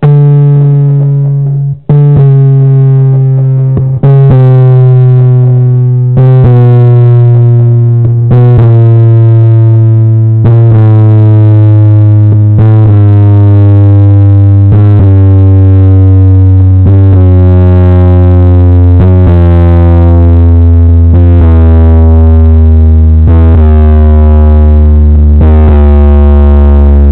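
Two MTX 10-inch subwoofers in a ported box playing a series of loud, heavily distorted bass test tones. A new tone starts about every two seconds, each a step lower than the last, dropping from a mid-bass hum to a deep low note.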